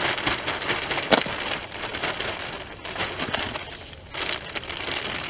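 A plastic bag of potting compost crinkling as compost is tipped from it into a planting hole, with a spade working the soil. There is one sharp knock about a second in.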